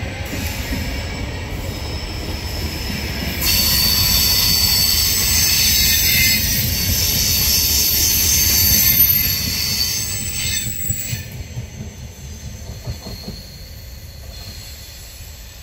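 Vivalto double-deck regional train hauled by an E464 electric locomotive pulling away from the station, its wheels rumbling over the track. A loud high-pitched wheel squeal starts about three seconds in and stops near ten seconds, and then the train's sound fades steadily as it recedes.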